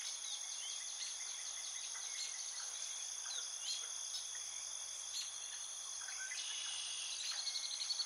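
Steady high-pitched trilling of insects, with scattered short bird chirps and a fast pulsed trill near the end.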